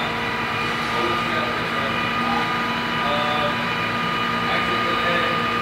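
Steady machinery drone with several constant pitched tones, unchanging throughout, with faint voices in the background.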